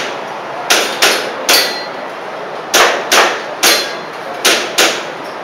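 Airsoft pistol firing about eight shots in three quick strings: three shots about a second in, three more near three seconds, then two near four and a half seconds. Each shot is a sharp crack with a short ringing tail.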